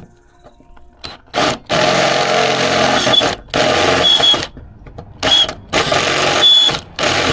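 Electric drill boring a hole through car body sheet metal, run in about six bursts of a second or so with short pauses between, the bit giving brief high squeals now and then.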